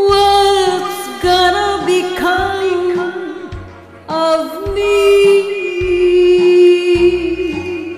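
A voice singing a slow ballad line in long held notes over a backing track with a bass line. There are two phrases, with a short break just before the second begins, about four seconds in.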